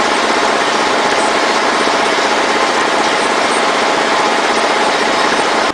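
Bus diesel engine idling steadily, heard close to the back of the bus.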